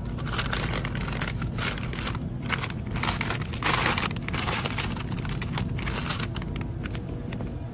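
Plastic mesh bags of navel oranges rustling and crinkling as they are handled and lifted, in irregular crackly bursts that are loudest about four seconds in, over a steady low hum.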